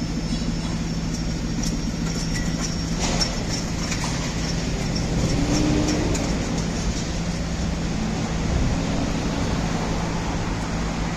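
Construction cradle running: a steady mechanical hum, with a scatter of light ticks and clicks in the middle.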